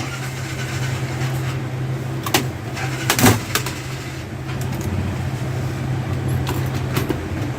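Scattered clicks and knocks of laptop parts being handled and taken apart, the loudest about three seconds in, over a steady low hum.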